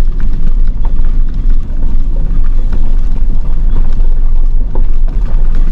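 Tow truck driving slowly along a gravel road, heard from inside the cab: a steady, loud low rumble from the engine and tyres.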